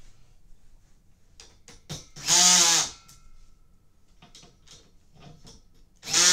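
Cordless drill tightening a bolt on a bed frame in two short runs, each under a second and about four seconds apart. Light clicks and knocks of handling come between the runs.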